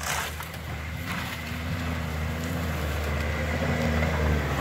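Toyota Hilux Surf engine working as the SUV climbs a snowy, rutted track, getting steadily louder as it comes closer.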